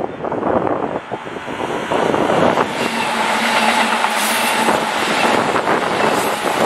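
Keikyu 800 series electric train approaching and then running past close by, its wheels rumbling on the rails. It grows louder about two and a half seconds in as the cars pass, with steady whining tones from the running gear.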